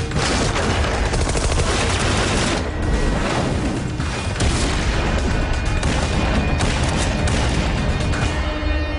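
Rapid gunfire, many shots close together, mixed with music.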